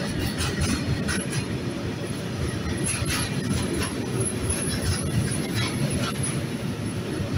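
Container freight wagons rolling past: a steady low rumble of steel wheels on the rails, with irregular sharp clicks and clanks from the wheels and couplings.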